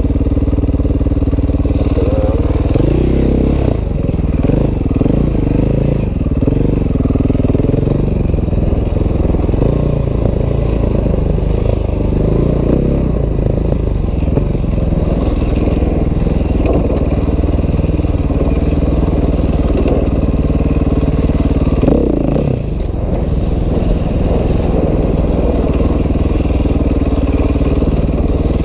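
Dirt bike engine running as it is ridden over a rough trail, its pitch rising and falling as the throttle is worked, with a brief rev about 22 seconds in.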